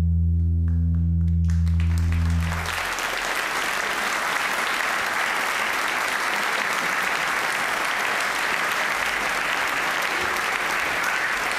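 A held low musical note dies away about two and a half seconds in, as audience applause starts and builds into steady, dense clapping.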